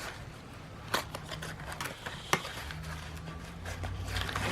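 Light clicks from trunk gas struts being handled, two sharp ones about a second and two and a half seconds in, over a low steady hum.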